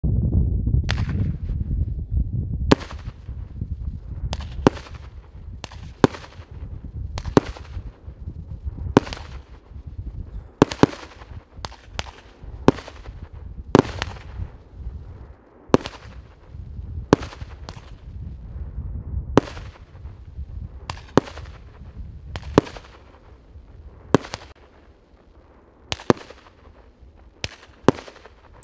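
Piroff 100-shot, 1-inch consumer fireworks battery firing: sharp bangs of bursting shells about once a second, each trailing off, with a noisy rush between them. A low rumble sits under the first few seconds.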